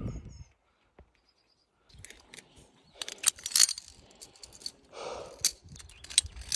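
Faint high chirps, then from about two seconds in a run of irregular clicks, taps and rustling.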